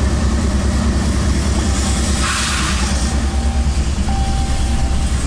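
A CSX freight train rolling past close by, heard from inside a truck cab: a steady, pulsing low rumble from the diesel locomotive and the intermodal cars, mixed with the truck's own road noise. A short burst of hiss comes about two seconds in.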